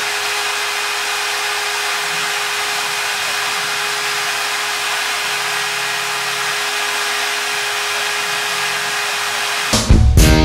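CNC milling machine running while machining an aluminium part: a steady hiss with a steady whine under it. About three quarters of a second before the end, heavy-metal guitar music cuts in.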